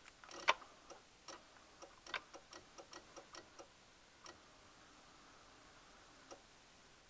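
Fuel pump relay, and perhaps a couple of other relays in the underhood relay box of a GM full-size truck, clicking irregularly, about fifteen clicks in the first four seconds and one more near the end, as a loose ground wire is wiggled with the key on. The intermittent ground makes the relays drop out and pull in, the fault behind the truck's reduced-engine-power episodes and stalling over bumps.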